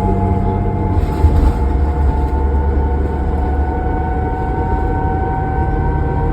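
2005 New Flyer D40LF diesel transit bus running under way, heard from inside: a low engine rumble with a steady whine that climbs slowly in pitch as the bus gathers speed. The low note changes about a second in.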